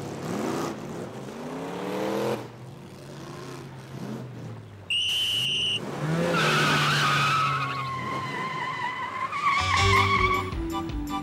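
Cartoon race-start sound effects: a rising, revving race-car-like sound, then a short high whistle blast about five seconds in, then a long falling squeal. Music with a beat starts near the end.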